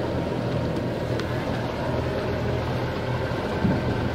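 Outboard motor of a Carolina Skiff running steadily underway, a steady low hum under an even rush of water and wind noise.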